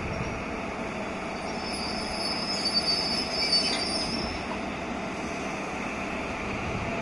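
Electric locomotive rolling slowly up to a BOXN wagon for coupling, its steady running noise joined by a thin, high-pitched wheel or brake squeal about a second and a half in that is loudest around three seconds in, then fades.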